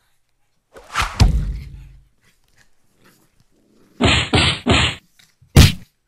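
A pug and a corgi puppy play-fighting, with short loud bursts of barking: one about a second in, then three quick barks in a row about four seconds in, and one more near the end.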